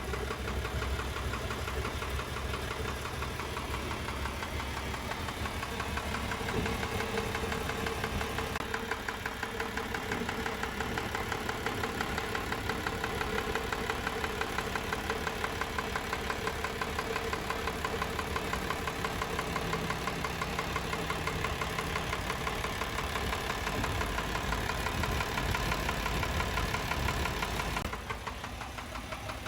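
Isuzu FTR's 6HH1 six-cylinder diesel engine running steadily after a start, with an engine noise the mechanic is checking; the engine also has blow-by. The level drops somewhat near the end.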